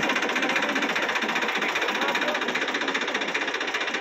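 Heavy farm machinery running steadily with a loud, fast, even rattle.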